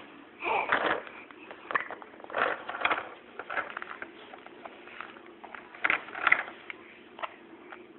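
Plastic toys on a baby walker clicking and rattling in a few irregular bursts.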